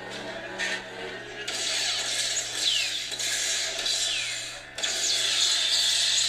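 Proffie-board lightsaber playing its 'Starfall' sound font through the hilt's small speaker: a steady low saber hum, joined about a second and a half in by loud crackling swing and clash effects with a few falling whooshes. The crackling drops out briefly about three-quarters of the way through, then comes back.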